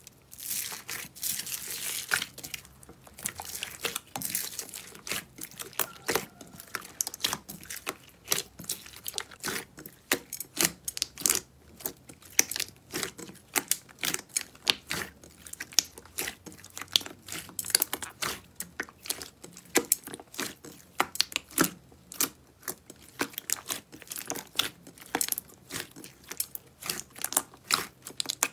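Soft slime mixed with small foam beads being kneaded, pulled and pressed by hand, giving a dense, irregular run of sharp crackling clicks.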